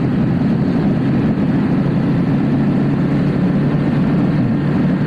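Motorcycle engine running at a steady cruising speed, its even drone holding pitch, over a rushing noise of wind and road.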